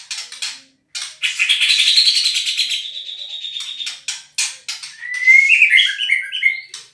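White-rumped shama (murai batu) singing cucak jenggot-style 'tembakan' calls. It gives fast, harsh, high-pitched chattering in two long runs, broken by short sharp notes. Near the end comes a quick run of stepped whistled notes that climb and then fall.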